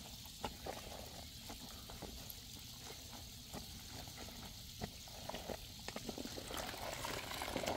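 Wet cloth kneaded and squeezed by hand in a basin of foamy yellow-clay dye water: faint squelching and sloshing with small scattered crackles from the bursting foam, a little busier near the end.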